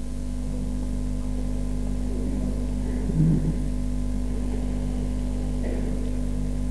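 Steady electrical hum from the microphone and public-address system, with a faint short sound about three seconds in.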